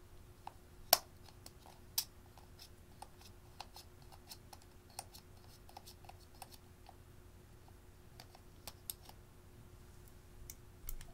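Thin metal spatula scraping and tapping against a small makeup pot and a glass dish: many light irregular clicks, with two sharp knocks about one and two seconds in.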